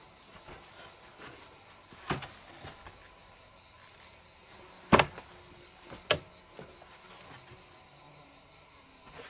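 A few sharp knocks as a plank wooden door and long boards are handled and stood up in a stone doorway; the loudest comes about five seconds in. Under them, insects chirr steadily and high.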